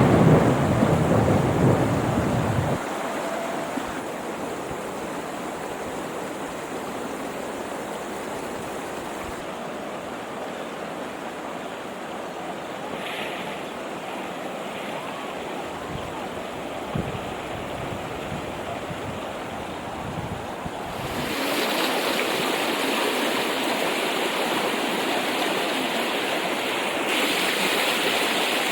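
Steady rushing of flowing floodwater, with a loud low rumble of wind on the microphone over the first few seconds; the rush grows louder about two-thirds of the way through.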